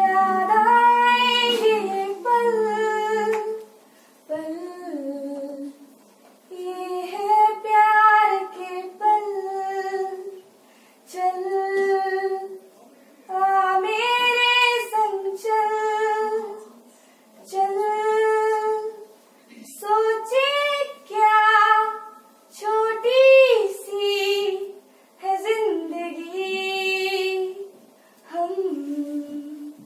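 A woman singing solo, unaccompanied, in drawn-out phrases with held notes, separated by short pauses for breath.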